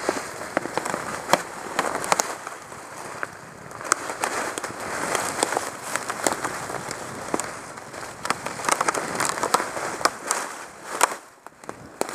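Enduro motorcycle rolling downhill with the engine silent, its tyres crackling and snapping over dry leaves and fallen twigs in a dense run of irregular clicks.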